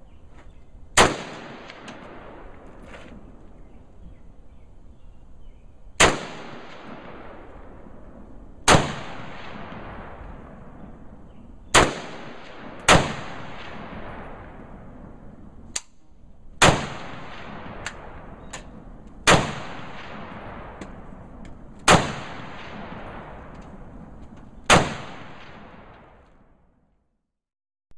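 Rifle firing nine single shots, spaced about two to five seconds apart, each followed by a long echoing tail. The sound fades away near the end.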